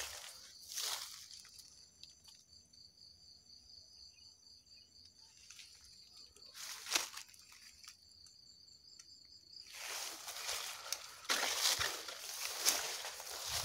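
Grass and leaves rustling as someone pushes through undergrowth on foot, briefly about a second in and near seven seconds, then almost continuously for the last few seconds. In between, an insect trills steadily with a fast, even pulse.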